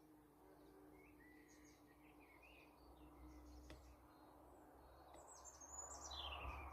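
Near silence with faint birdsong: a few short chirps and a falling whistle near the end, over a faint steady hum.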